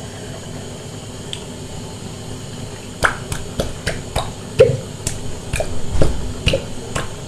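Plastic ketchup bottle squeezed upside down, sputtering as sauce and air spurt from the nozzle: a run of sharp, irregular pops and clicks starting about three seconds in.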